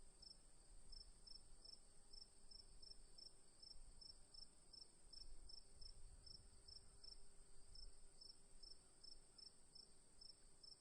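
Crickets chirping faintly: one steady high trill without a break, with another cricket's short chirps repeating evenly, about three a second, over a faint low background rumble.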